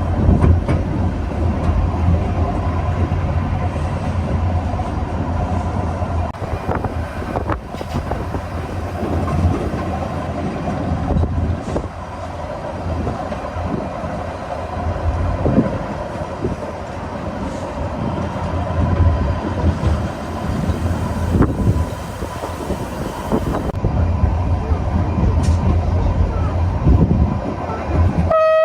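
Steady low rumble of a moving vehicle, with a faint steady whine and scattered short knocks throughout.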